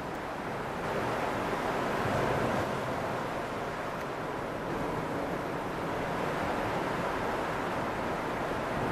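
Steady rushing noise of wind and ocean surf at the shore, getting slightly louder about a second in.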